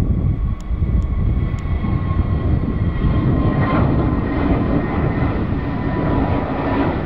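Twin jet engines of an easyJet Airbus A320-family airliner at takeoff thrust during the climb-out: a steady loud rumble with a thin steady whine over it.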